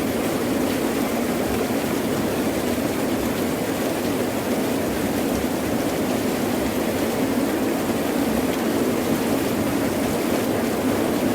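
Heavy rain pouring down steadily, an even, unbroken wash of noise.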